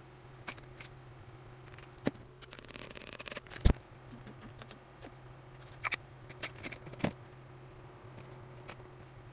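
Small handling noises of toiletry containers: scattered clicks, taps and rustles, with a quick run of clicks a few seconds in ending in a sharp knock and a few more taps later, over a steady low hum.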